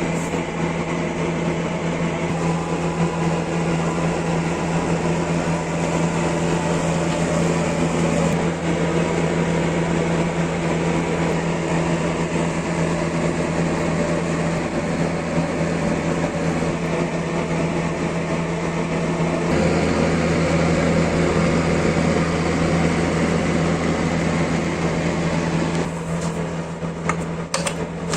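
Electric power tool motor running steadily at constant speed, with a strong steady hum. A few sharp clicks come near the end.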